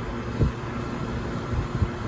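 2001 York central air conditioner's outdoor condensing unit running: the condenser fan and compressor give a steady hum with a few steady tones. A couple of brief low thumps come through, about half a second in and near the end.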